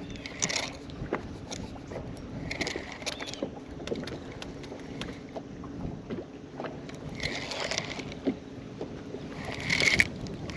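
Spinning rod and reel being cast and reeled in from a boat: about four short whooshing, whirring bursts of line and reel, the loudest near the end. Underneath are water lapping at the hull and a steady low hum.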